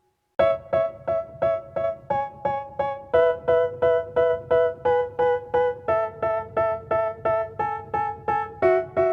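Background music: a piano-like keyboard playing repeated chords, about three strikes a second, with the chord changing every few seconds. It comes in after a brief silence at the start.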